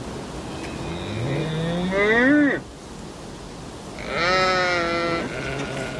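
Livestock bleating: two long, wavering calls, the first rising in pitch over about two seconds and the louder, the second about four seconds in.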